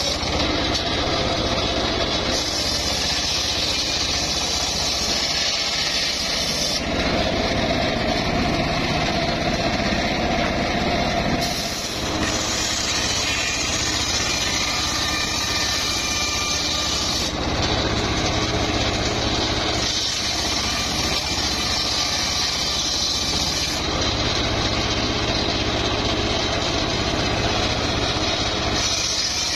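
Homemade engine-driven circular saw bench running steadily while its blade rips mahogany boards. The tone shifts every few seconds as cuts begin and end.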